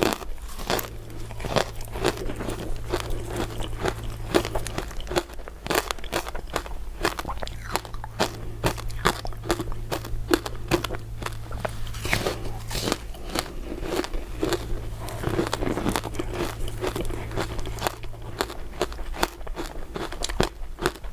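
Close-miked biting and chewing of crisp crystal ice dessert pieces: a dense, irregular run of sharp crunches and crackles.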